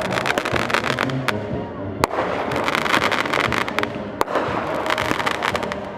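Fireworks going off: three spells of rapid crackling, with two single sharp bangs about two seconds and four seconds in.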